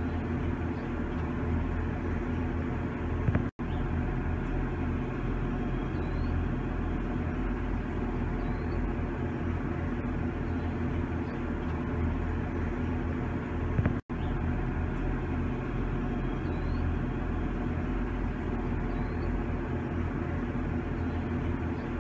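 Steady outdoor background noise with a low rumble, like distant traffic, and faint short high chirps every few seconds. About three and a half seconds in, and again about ten seconds later, there is a brief loud click and the sound cuts out for an instant where the repeating clip restarts.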